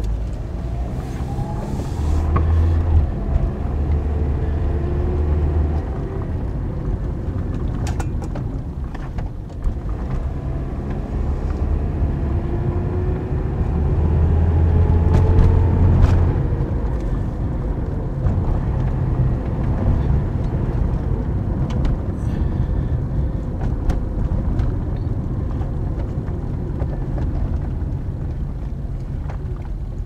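A 2009 Toyota Corolla driving, heard from inside the cabin: steady road and engine rumble, with the engine rising in pitch as the car accelerates, once near the start and again about halfway through. A few sharp knocks come through, the clunking the owner puts down to a worn front sway bar link.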